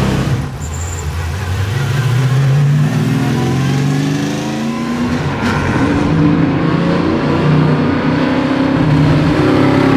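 Race-prepped Ford Mustang fastback's V8 accelerating hard, loud, its pitch climbing and dropping back several times as it goes up through the gears.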